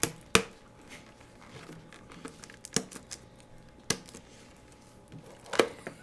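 Clear plastic shrink-wrap being picked at and peeled off a cardboard trading-card box by hand, crinkling, with several sharp clicks and taps spread through.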